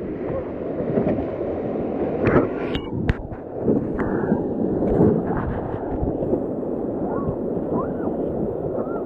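Rushing whitewater and wind buffeting the microphone on a river raft, an even rough noise with irregular splashes and knocks.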